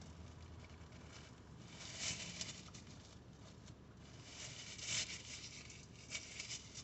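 Paper tissue rustling and crinkling, wiped across the lips and then folded in the hands, with a few short crackles about two and five seconds in.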